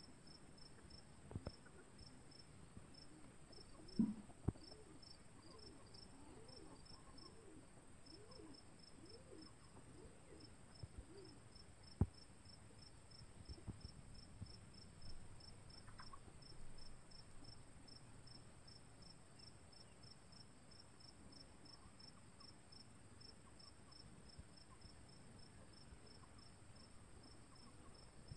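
Crickets chirping faintly in a quick, even rhythm, over a steady high insect hum. A few sharp knocks, the loudest about four and twelve seconds in, and soft low clucking from hens between about five and eleven seconds in.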